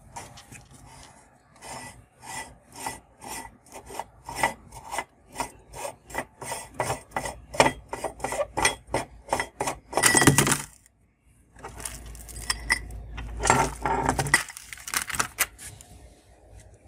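Cast-aluminium hand-crank meat grinder being taken apart by hand: metal rasping and rubbing as the threaded front ring and die plate are worked loose, in short strokes about two a second. About ten seconds in comes one longer, louder stroke. After a short pause there is a denser stretch of scraping as the parts come off.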